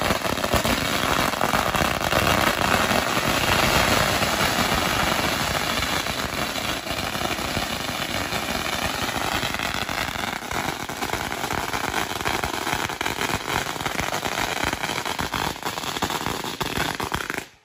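A long string of Chinese firecrackers going off in a loud, dense, unbroken crackle of rapid pops, which cuts off suddenly near the end.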